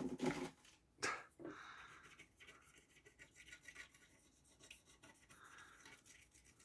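Faint rubbing and scratching of tools working on a game console's circuit board, with a few soft knocks in the first second and a half.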